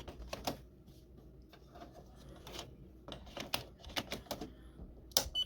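Light plastic clicks and taps of ink cartridges being handled and pressed into place in a Canon TR8520 inkjet printer's print-head carriage, scattered irregularly, with a sharper click near the end.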